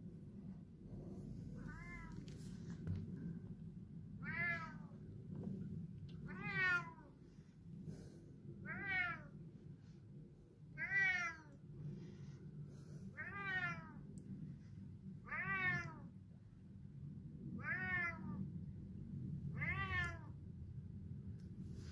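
A cat meowing repeatedly, heard through a closed window: about nine loud calls, one roughly every two seconds. It is calling to be let back indoors.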